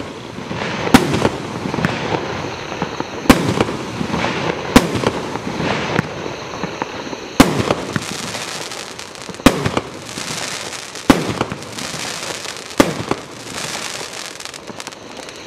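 Primed Pyro Joker's Wild 1.3G consumer firework cake firing. About seven sharp bangs come one to two and a half seconds apart, with a rushing hiss and crackle between them.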